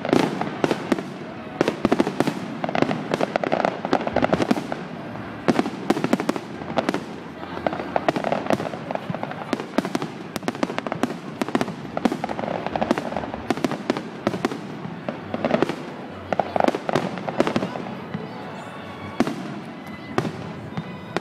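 Aerial firework shells bursting in quick succession: a dense run of bangs and crackles that thins out near the end.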